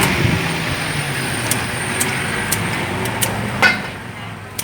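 Steady rumble of passing road traffic, with a few light clicks and one sharp clatter with a brief ring a little before the end.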